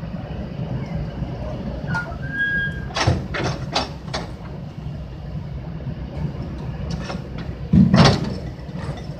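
Heavy truck's engine running steadily. A few sharp knocks come between about three and four seconds in, and a loud sudden burst near eight seconds.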